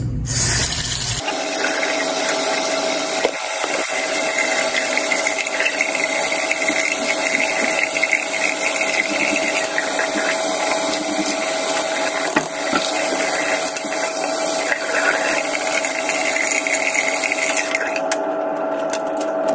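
Bathroom sink tap running steadily into the basin, with a steady hum-like tone under the hiss of the water. It starts about a second in and stops shortly before the end.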